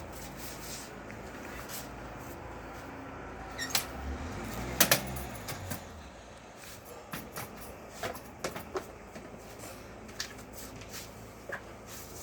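Scattered clicks and knocks over steady background noise, the loudest a quick double knock about five seconds in, with a few lighter clicks a few seconds later.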